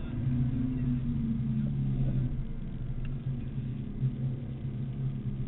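BMW Z4 M Coupe's 3.2-litre straight-six engine heard from inside the cabin, running at nearly steady revs as the car drives down the track, a low steady drone that dips briefly about four seconds in.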